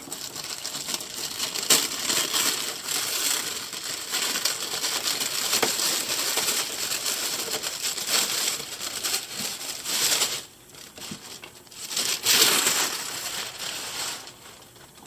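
Tissue paper rustling and crinkling as it is pulled off a boxed doll. The crinkling goes on for about ten seconds, stops briefly, then comes back for a shorter spell.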